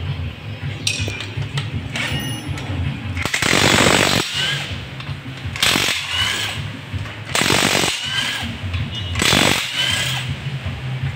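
A power tool run in four short bursts of half a second to a second each, over a steady low hum.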